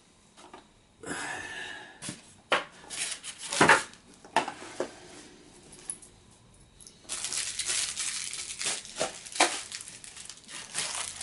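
Hand-handling noises: a few scattered clicks and knocks, then from about seven seconds in a longer stretch of rustling and crinkling.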